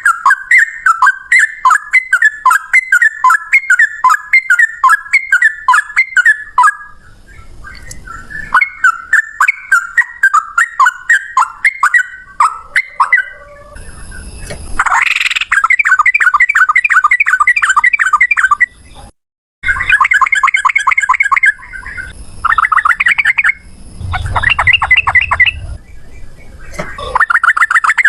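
Sooty-headed bulbuls (trucukan) calling in long, rapid rolling series of repeated notes, about four a second at first and faster and denser in the second half, with short breaks between series. This is the bird's 'ropel' fighting call.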